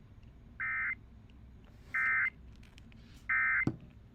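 Emergency Alert System end-of-message data bursts: three short, harsh digital squawks, each about a third of a second long and about a second apart, marking the end of the alert. A faint click follows near the end.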